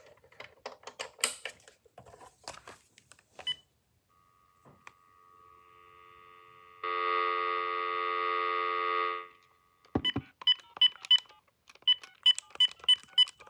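Uniden EXP7900 cordless phone: a few handling clicks, then a dial tone heard from the handset for about five seconds, louder in its second half. It is followed by about ten short, high key-press beeps in two quick runs as the keypad buttons are pressed.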